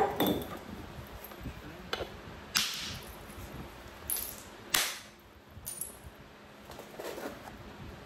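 Copper bopper striking a chunk of Texas root beer chert: several sharp cracks spaced a second or two apart, two of them louder than the rest, as the knapper tries to spall flakes off the stone.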